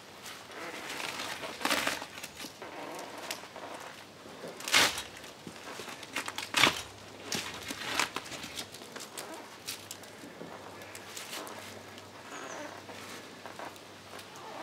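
Rustling and scraping of someone climbing a tree, clothing and gear brushing against bark and branches, with two louder knocks about five and about seven seconds in. A short bird chirp near the end.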